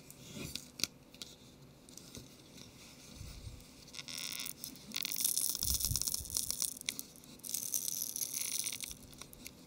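Cold double-sided adhesive crackling and tearing as a Nexus 7 tablet's plastic screen frame is pried away from the display with a thin tool, the adhesive still stiff and hard to separate. A few light clicks at first, then patches of dense crackling from about four seconds in until near the end.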